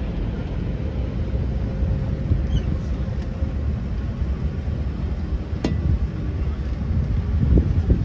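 Wind buffeting the microphone over the steady low rumble of a river tour boat under way. There is one sharp click a little before six seconds in.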